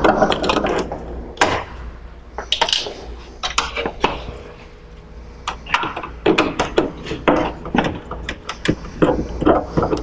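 Hand screwdriver backing Phillips head screws out of a plastic equipment panel: a string of small, irregular clicks and ticks, coming in quick runs more than halfway through.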